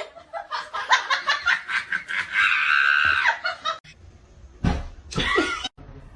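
A person laughing in quick bursts that rise into a high, held squeal about halfway through, then cut off suddenly.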